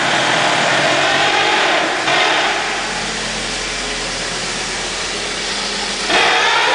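Car's steering making its turning noise over the running engine: a loud, steady rushing that eases slightly after about two seconds and rises again abruptly near the end. It is the unwanted noise that appears when the steering wheel is turned.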